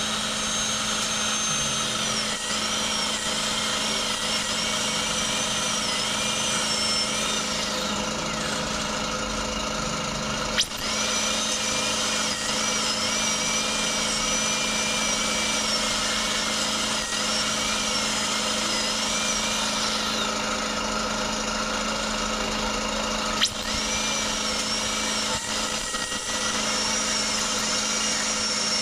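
High-speed dental drill (air-turbine handpiece) whining, its pitch dipping again and again as the bur cuts into the impacted wisdom tooth and surrounding bone. It runs in three stretches, stopping twice for about three seconds and starting again with a click each time.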